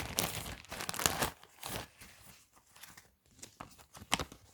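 Plastic packaging bag crinkling and rustling as it is opened and handled, densest in the first second and a half, then sparser rustles with a sharp click about four seconds in.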